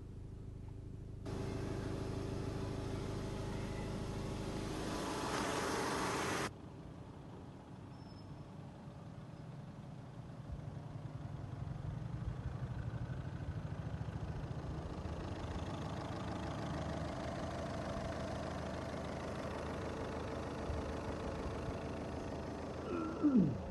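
Skoda Rapid engine running at idle while it takes in hydrogen-oxygen gas from an HHO carbon-cleaning machine. A louder, steady stretch from about one to six seconds in cuts off abruptly, and a brief falling whine comes near the end.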